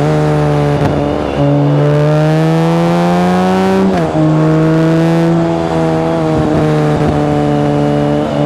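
BMW K1600GT's inline six-cylinder engine under power, its exhaust note boosted in the recording. The pitch climbs steadily for about four seconds, then drops sharply with an upshift and runs on nearly level.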